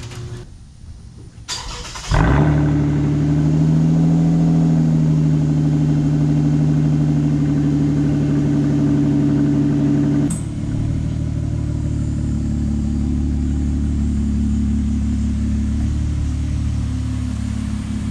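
A car engine starts about two seconds in and settles into a steady idle. About ten seconds in there is a click and the engine sound drops a step, then runs steadily on.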